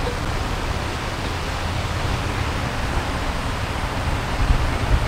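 Wind buffeting the microphone outdoors: a steady rushing hiss over an uneven low rumble, with a couple of stronger low gusts near the end.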